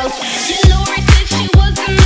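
Break Latin dance music from a DJ mix. After a short break in the beat, the heavy bass kick drum comes back in about half a second in and keeps a driving, uneven rhythm.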